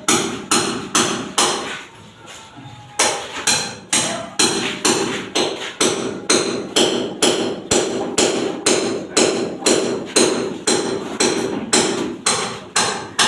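A hammer striking repeatedly in a steady rhythm of about two to three blows a second. A short run of blows at the start is followed by a brief pause, then a long even series of strikes.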